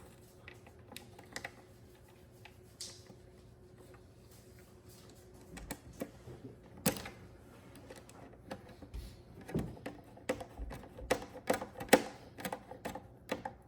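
Small sharp clicks and taps of plastic housing parts and a screwdriver being handled while a coffee maker is put back together. They are sparse at first and come thick and irregular, like typing, in the second half.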